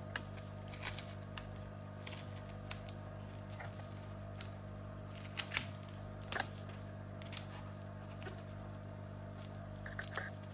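Faint, scattered clicks and taps of laptop parts being handled as the screen panel is worked loose, over a steady low electrical hum.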